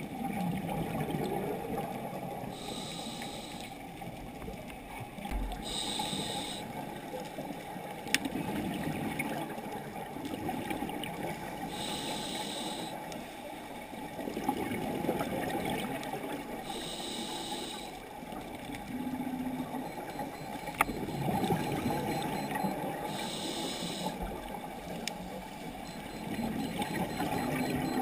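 Scuba breathing heard underwater through a regulator: five hissing inhalations a few seconds apart, with the bubbling rumble of exhaled air between them.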